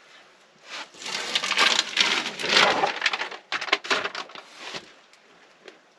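Crinkling and crackling of sound deadener sheet and its paper backing being handled. It goes for about four seconds and ends in a few separate crackles.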